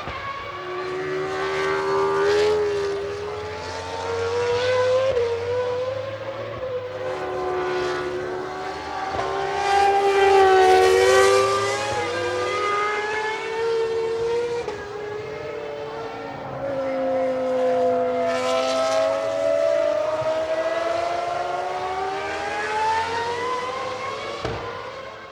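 Several racing car engines at high revs, their notes rising and falling as they pass and shift, loudest about ten seconds in.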